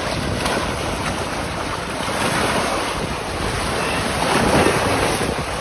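Wind buffeting the microphone, with small waves lapping against a rocky lakeshore; a steady, even rush without distinct events.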